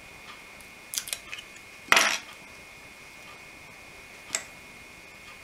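Hands working on a small plastic model-train part: a few light clicks and taps about a second in, then a short crackling rustle about two seconds in as double-sided adhesive tape is handled and pressed on, and one more click later.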